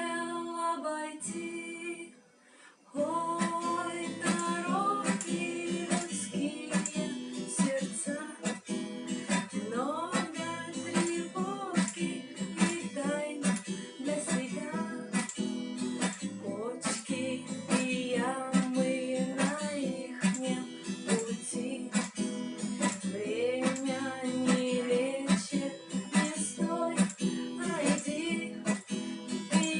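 Acoustic guitar strummed in chords, stopping briefly about two seconds in and then strumming on steadily.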